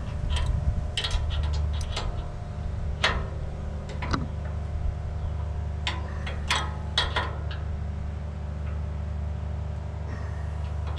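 Kioti CK2610 compact tractor's diesel engine idling steadily, with scattered sharp metallic clicks and clinks from a wrench being worked on the top-link bolt of the three-point hitch.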